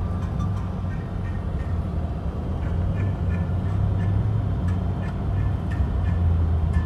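Steady low road and engine rumble inside a moving car's cabin, with faint short high tones now and then.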